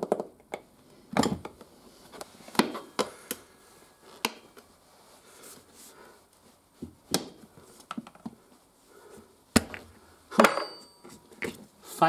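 Steel tyre levers knocking and scraping against a motorcycle's alloy front rim as a new tyre's bead is levered onto it: a string of irregular sharp clanks and knocks, a second or so apart.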